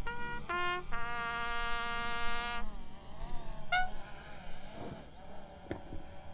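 Military bugle call: two short notes, the second lower, then a long held note, then one more short note about halfway through.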